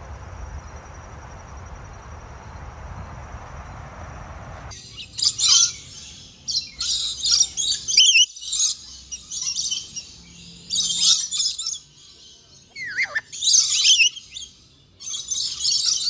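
Steady low background noise, then about five seconds in, an abrupt start of loud, high-pitched bird chirping and calling in quick clusters, with a few fast downward-sweeping calls.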